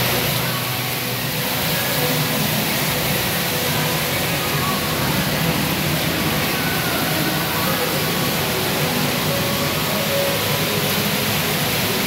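Waterfall's water pouring down in a steady, even rush.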